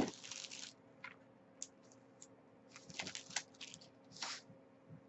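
Clear plastic bag crinkling and rustling in short spells, with a few light clicks, as a packet is slipped back into it and the bag is handled. A faint steady hum runs underneath.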